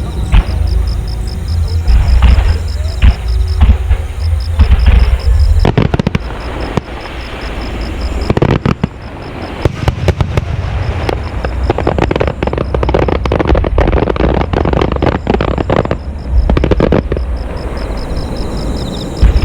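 Aerial fireworks display: scattered booms at first, then from about six seconds in a dense run of bursting shells with sharp bangs and crackling that eases off near the end.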